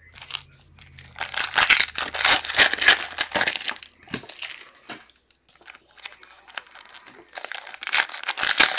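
Foil football trading-card pack wrappers crinkling and being torn open by hand, in two bouts: one about a second in and another near the end, with quieter rustling between.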